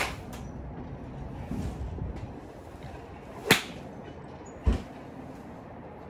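Golf club striking a ball off a driving-range mat: one sharp crack about three and a half seconds in, the loudest sound, followed about a second later by a low thump. Wind rumbles on the microphone throughout, with a fainter click at the very start.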